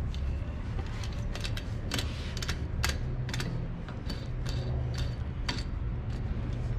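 Irregular light metallic clicks and taps as stainless steel KF25 vacuum fittings and a clamp are handled and seated on a cold trap's inlet port, over a steady low hum.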